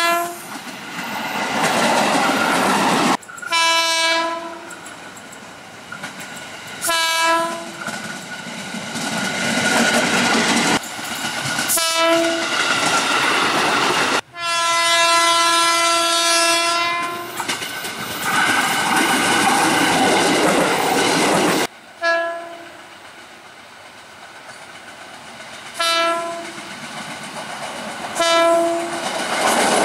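Horns of KRL Commuter Line electric trains, sounded in a string of short clips cut together: several short toots and one long blast of about three seconds, each held on one steady pitch, over the noise of passing trains.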